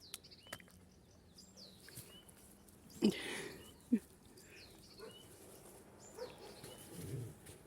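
Small birds chirping now and then. A brief louder sound comes about three seconds in, and a sharp click just before four seconds.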